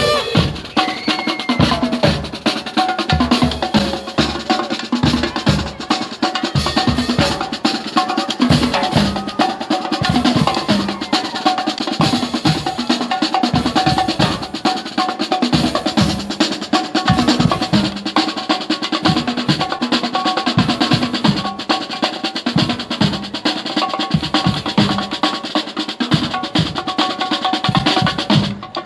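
Marching band drum line playing a fast cadence on snare and bass drums, with held notes from other instruments underneath. It stops abruptly at the very end.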